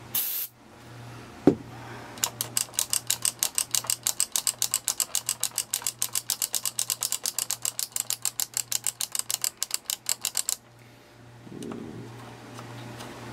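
The radio's switch being worked rapidly back and forth, clicking evenly about six times a second for some eight seconds, to spread contact cleaner and loosen the dirt behind a loose contact. A short hiss comes at the start and a single knock about a second and a half in.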